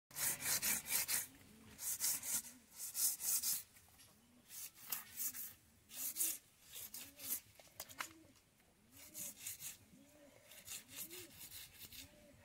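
A knife blade being sharpened on the wet concrete edge of a hand-pump trough: rasping back-and-forth scrapes in short runs of strokes, louder in the first half. A faint short call repeats at a low pitch through the second half.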